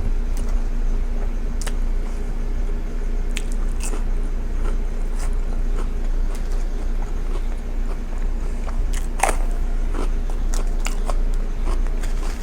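Close-miked eating: biting and chewing a mouthful of burger on toasted bread, with crunches and wet mouth clicks scattered throughout and a cluster of louder clicks about nine seconds in. A steady low hum runs underneath.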